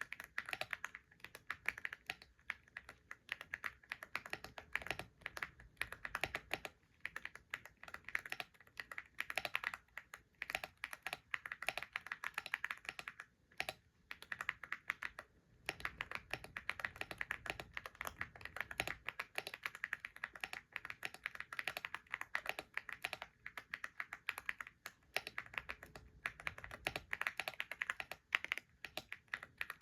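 Typing on a computer keyboard: a fast, continuous run of key clicks, with a couple of short pauses about halfway through.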